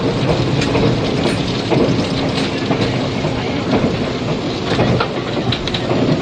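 Inside a 485-series electric limited express passenger car running at speed: the steady rumble of the moving train, with irregular sharp clicks of the wheels over rail joints, under a layer of old cassette-tape hiss.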